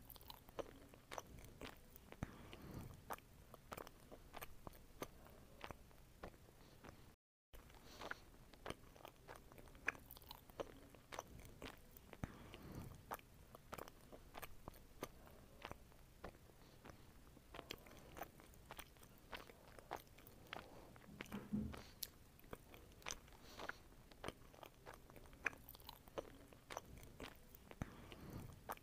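Close-up mouth sounds of a person biting and chewing juicy fresh fruit, watermelon and grapes, with many small wet clicks and crunches. The sound cuts out briefly about seven seconds in.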